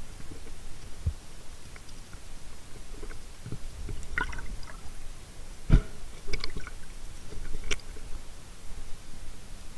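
Muffled underwater water noise with scattered short clicks and knocks, the loudest a sharp knock a little past halfway.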